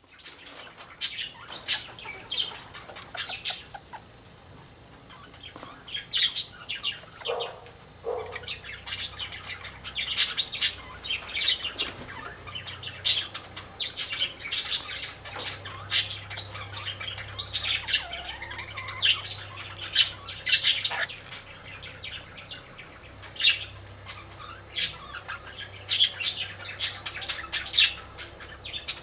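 Aviary birds calling: a busy run of short, high chirps and tweets, from the small Australian parakeets kept with the bantam chickens, with a couple of lower, clucking calls about a quarter of the way in.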